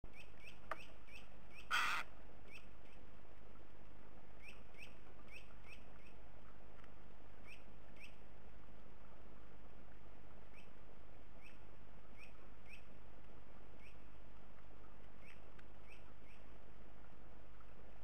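Small birds calling with short, high chirps, repeated at irregular intervals and often in quick runs. One short, harsh burst about two seconds in, over a steady low hum.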